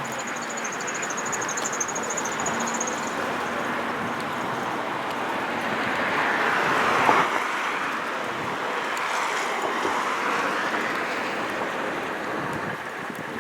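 A train passing, a steady rushing noise that swells to its loudest about seven seconds in and then eases off, with a thin high whine over it for the first three seconds.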